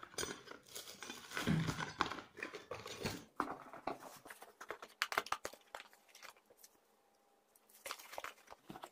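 Faint rustling and crinkling of plastic packaging and cardboard, with scattered light clicks and knocks as parcel contents are handled. It mostly dies away after about six seconds.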